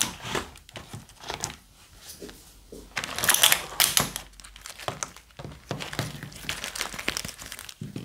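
A clear plastic packaging tray and foam soap roses crinkling and crackling as hands press slime onto the roses and pull them out of the tray, in irregular bursts loudest about three to four seconds in.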